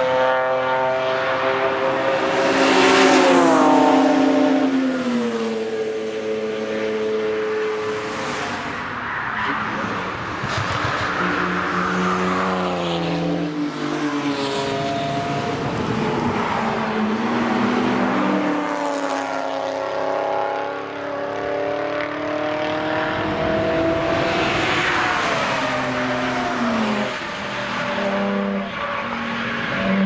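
BMW cars driven hard past the microphone one after another, their engines revving: the engine note falls and rises several times as they brake, shift and accelerate.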